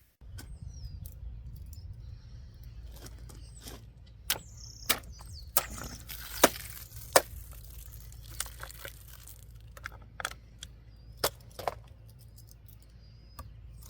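Small multi-tool pocket knife blade in a cutting test: scattered sharp clicks and short scraping slices as the blade cuts through material, the loudest near the middle, over a steady low hum.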